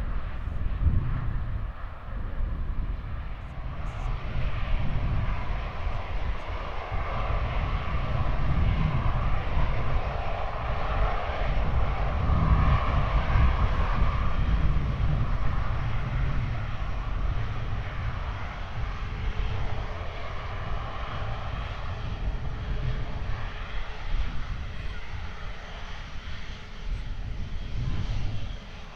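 Airliner engines running as an aircraft passes, building to their loudest about halfway through, then easing off.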